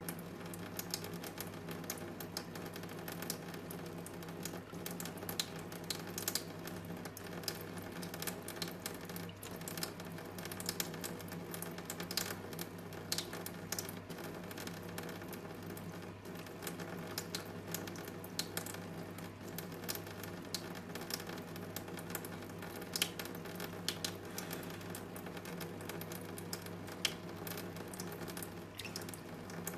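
Thin stream of tap water splashing into a steel sink, broken up into irregular ticks and patters as a cat paws through it, over a steady low hum.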